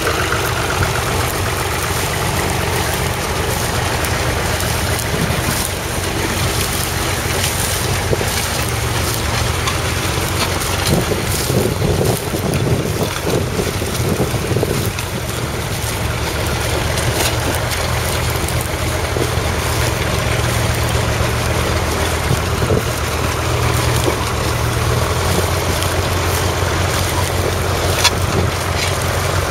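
1961 Massey Ferguson 35's 2.5-litre three-cylinder Perkins diesel running steadily under load as it pulls a Ransomes plough through stubble. Wind buffets the microphone.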